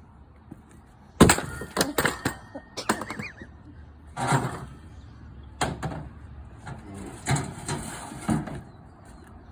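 Sledgehammer blows smashing furniture apart: a heavy first strike about a second in, then a string of further hits roughly a second apart, with cracking and clattering pieces between them.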